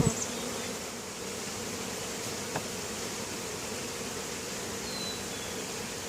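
Honeybees from an opened hive buzzing in a steady swarm hum, with a single light click about two and a half seconds in.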